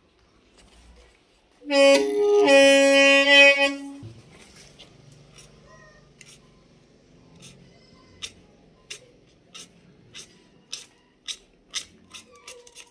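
A single bamboo khèn pipe's brass free reed blown for about two seconds, a loud reedy held note with a brief step in pitch, as the reed is tested while being tuned. Afterwards a knife blade scraping the brass reed gives light clicks, about one or two a second.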